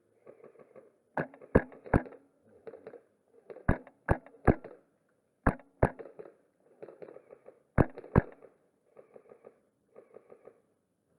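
Wolverine MTW HPA airsoft rifle firing semi-auto shots in quick strings, about ten in all: three, three, then two and two, each shot a sharp crack. Fainter crackling and rustling sounds come between the strings.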